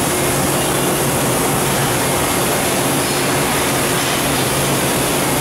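Haas VF-5B/40 CNC vertical machining center with its Midaco pallet changer running, shuttling a fixtured pallet into the machine: a steady mechanical noise with a constant low hum.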